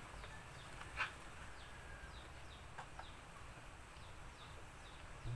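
Faint, brief animal calls: one short call about a second in, two more near three seconds, and a run of small, high, falling chirps in between.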